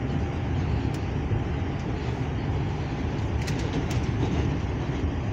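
Steady, loud rumble of a New York City subway car running on its rails, heard from inside the car. A few faint high clicks and ticks about a second in and again around three and a half to four seconds.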